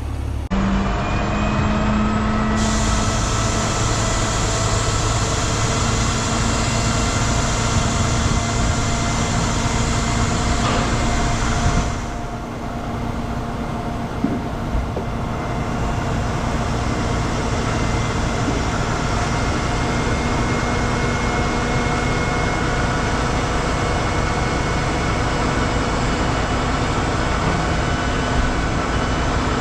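Heavy diesel truck engine running steadily with a constant whine, its sound shifting abruptly a few times.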